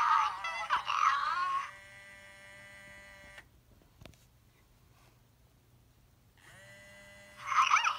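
Switched-on Hatchimal and Pomsie interactive plush toys making electronic chirping, babbling sounds with sliding pitch for the first couple of seconds and again near the end, over a steady electronic tone. The toys fall quiet in the middle, with a single click.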